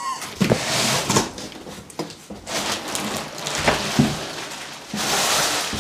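Plastic wrapping crinkling and rustling around a heavy portable power station as it is lifted out of its cardboard box, with a few knocks of the unit and cardboard.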